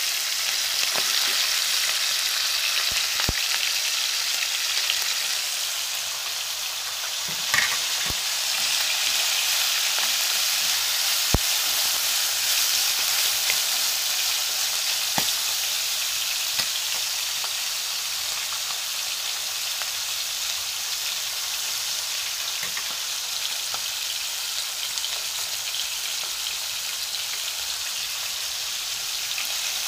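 Hot oil sizzling steadily in a pan: fish pieces frying, then chopped onions and other aromatics sautéing. A few sharp knocks of a spatula against the pan, the loudest about 11 seconds in.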